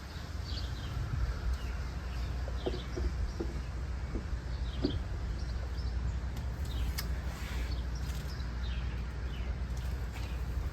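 Birds chirping over a steady low hum, with a few light knocks and clicks.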